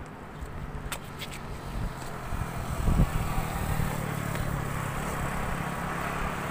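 Road traffic passing on a highway: a motorcycle's engine drone builds about two and a half seconds in and carries on steadily, with a short low thump about three seconds in.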